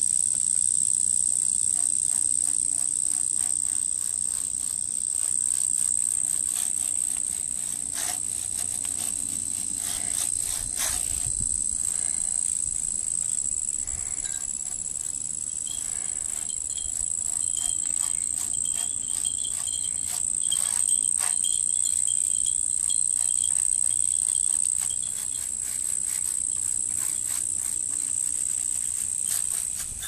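Insects calling in a steady chorus: one continuous high-pitched drone, with a few faint clicks and knocks.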